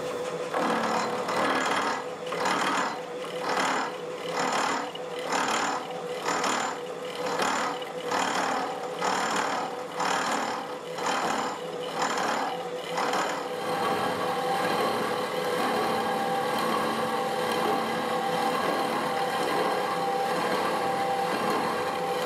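Milling machine with a toothed disc cutter cutting through metal bar stock on a 6 mm-deep pass, the motor holding a steady hum. The cut pulses in an even rhythm about one and a half times a second, then evens out into a steady cut a little past halfway through.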